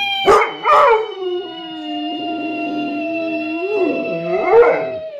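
Bullmastiff howling in long, wavering notes, with a couple of short yelps near the start and a rise and fall near the end. A second long note is held over it throughout, its pitch slowly sinking.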